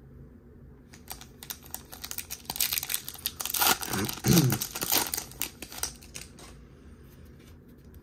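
Wrapper of a Topps baseball card pack being torn open and crinkled by hand: a run of crackling, loudest in the middle, dying away over the last two seconds.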